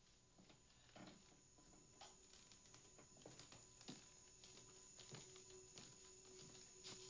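Near silence: faint, irregular soft taps and clicks, with a faint held tone coming in about halfway through.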